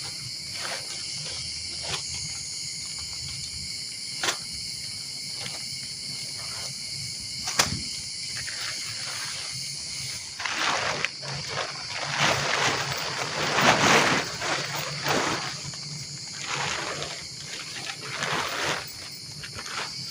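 Steady high chirring of insects, with a couple of sharp clicks in the first half. From about halfway, a run of louder, rough, noisy bursts comes and goes, loudest a little past the middle.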